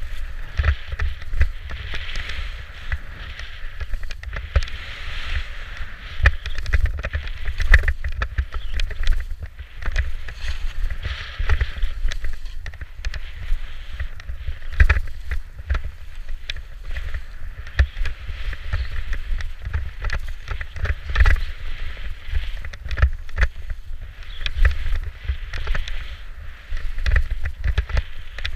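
Skis scraping and hissing over chopped-up snow while skiing downhill, the hiss swelling and fading every few seconds with the turns. Underneath, a steady wind rumble on the body-worn camera's microphone, with many small knocks from the skis over bumps.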